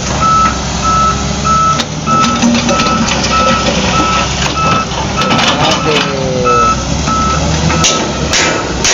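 Reversing alarm of a construction vehicle beeping at one steady pitch, about three beeps every two seconds, over a steady low rumble; a second, higher-pitched beeper sounds for a few seconds in the middle.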